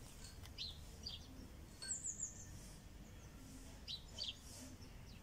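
Small birds chirping faintly in short, high, scattered calls, with a quick run of four descending high notes about two seconds in.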